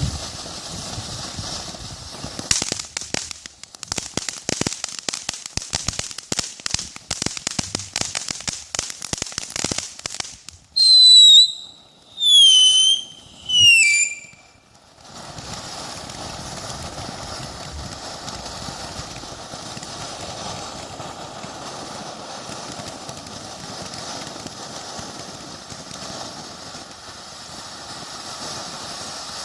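Consumer firework fountain (World Class Frosty Mug of Beer) burning: about ten seconds of dense crackling, then three short loud whistles that drop in pitch, then a steady spraying hiss to the end.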